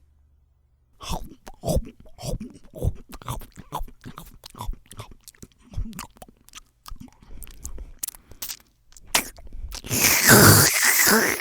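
Exaggerated wet, sloppy eating by a person: a quick run of short smacking, squelching chews and lip smacks, with a loud, longer wet squelch near the end.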